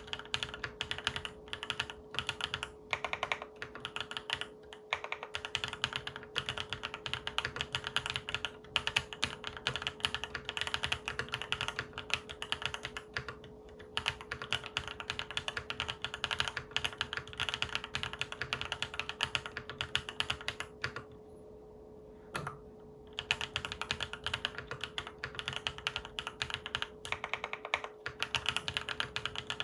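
Fast, continuous typing on a Monsgeek M3 full-aluminium tenkeyless mechanical keyboard with Akko Cream Yellow Pro linear switches and Akko Black Pink keycaps: a rapid stream of key clacks. It stops for about two seconds a little past the two-thirds mark, with one lone keystroke in the gap, then carries on.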